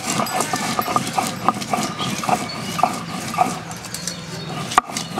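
Stone roller rocking and grinding chopped onions into paste on a flat shil-pata grinding stone: stone knocking and scraping on stone in an uneven rhythm about twice a second, with one sharper knock near the end.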